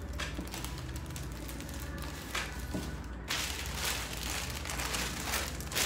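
Plastic packaging rustling and crinkling as a shirt's package is handled and opened, denser and louder from about three seconds in.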